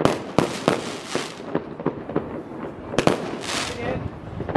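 Fireworks display: a quick series of sharp bangs from bursting shells, several followed by a crackling hiss, with a short lull between about one and a half and three seconds in.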